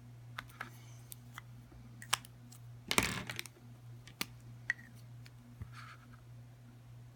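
Sharpie markers and a plastic phone case being handled while drawing: scattered sharp clicks and taps, with a brief louder rustle about three seconds in, over a steady low hum.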